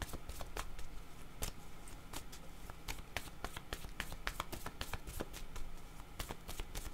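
A deck of cards shuffled by hand: a quick, irregular run of light card slaps and clicks.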